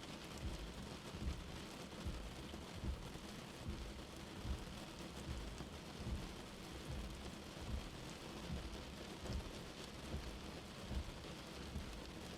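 Steady rain falling, with frequent irregular low thuds of drops landing.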